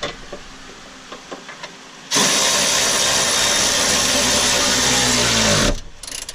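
A handheld power tool drives a bolt for about three and a half seconds, then its motor spins down with a falling pitch. Light clicks and handling of parts come before it.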